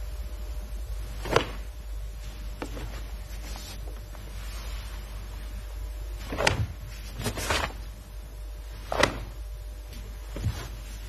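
A karate practitioner's movements through a kata: about six short swishing snaps of the uniform and body, one close pair in the middle, over a steady low hum.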